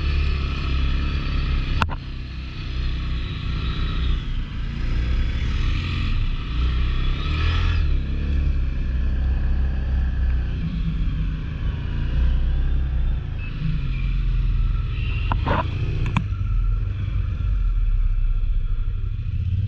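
Big-bore 1000 cc ATV engine running under load, its revs rising and falling. Sharp knocks come about two seconds in and again twice about fifteen to sixteen seconds in.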